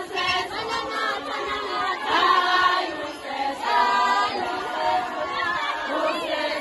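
A large group of women and girls singing together in chorus, a Zulu reed dance song with many voices overlapping.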